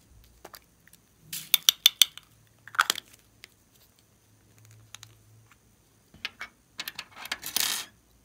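Glossy slime being pressed and stretched by hand, making sharp clicky pops in quick clusters, a few about a second in and again near three seconds, then a denser crackling run near the end.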